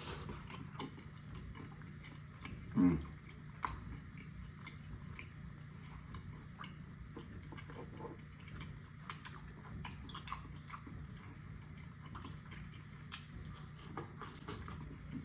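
Close-up eating sounds of barbecue ribs: scattered small wet clicks and smacks of chewing, with one short voiced 'mm'-like sound falling in pitch about three seconds in. A low steady hum sits underneath.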